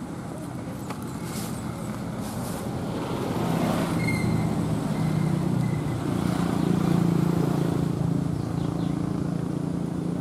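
Engine of a road vehicle running nearby, a low steady drone that grows louder about three seconds in and then holds.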